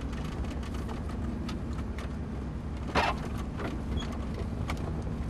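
Boat engine running steadily, heard from inside the wheelhouse, with scattered clicks and a louder knock about three seconds in.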